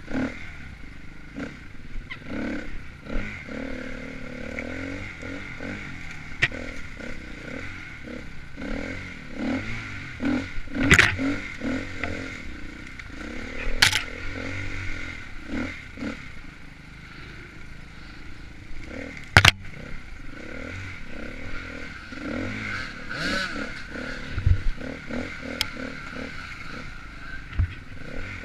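KTM dirt bike engine being ridden hard, its pitch rising and falling with the throttle. Clatter runs throughout, with loud sharp knocks about eleven, fourteen and nineteen seconds in.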